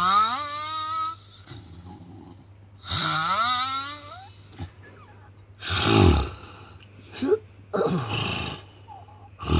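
A person snoring heavily and irregularly, about five snores in a row: some rise in pitch with a whining, groan-like tone, others are harsh and noisy, the loudest about six seconds in.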